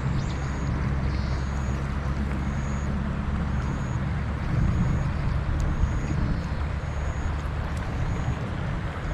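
Steady low rumbling background noise outdoors, with a thin, high chirp repeating about once a second.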